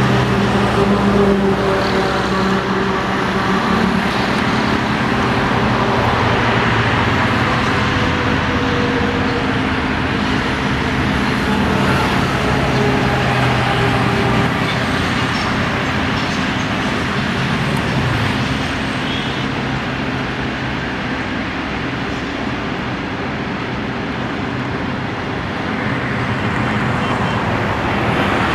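Freight train of covered wagons rolling past at a distance: a steady rumble of wheels on the track, easing off a little in the second half.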